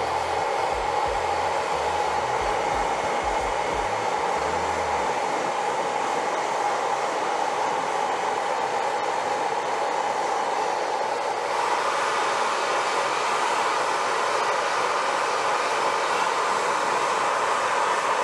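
Hair dryer blowing steadily; its tone rises slightly and it gets a little louder about two-thirds of the way through.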